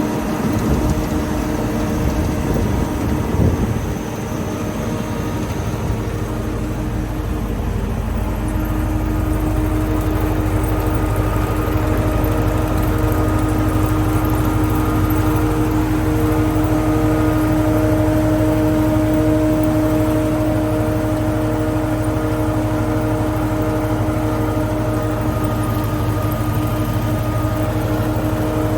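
TOS Svitavy FWD 80 double-sided wood planer running, its two four-knife cutterheads spinning. A steady machine hum with a few pitched tones, rougher and uneven for the first few seconds, then even.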